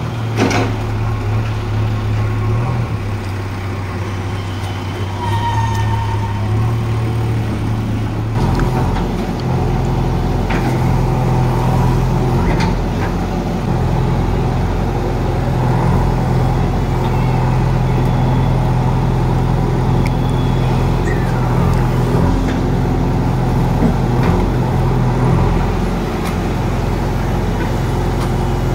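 JCB 3DX backhoe loader's diesel engine running steadily while the backhoe digs. About eight seconds in the engine note steps up and runs a little louder and higher from then on, as the engine works the digging hydraulics.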